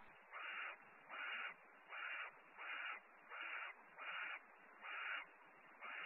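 Barn owl giving a steady run of short, harsh, rasping calls, about one every three-quarters of a second.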